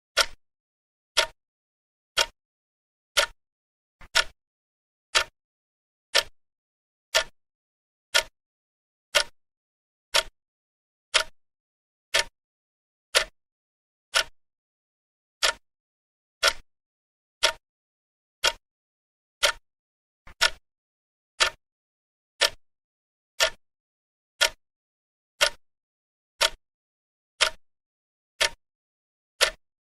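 A clock ticking, one sharp tick each second with silence between; a few of the ticks come as a quick double click.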